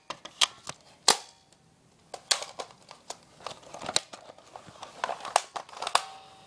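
A string of sharp, irregular plastic clicks and clacks from handling and working a non-electric airsoft rifle after loading it, the loudest about a second in.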